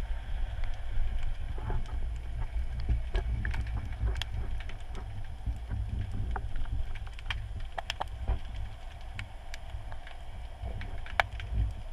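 Underwater sound picked up by a submerged camera: a steady low rumble of moving water, with scattered sharp clicks and ticks, one louder near the end.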